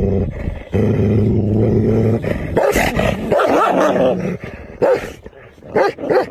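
A black wolfdog growling low and steadily while guarding a meaty bone from a bigger dog. The growl then becomes a louder, wavering snarl, and three short barks come near the end.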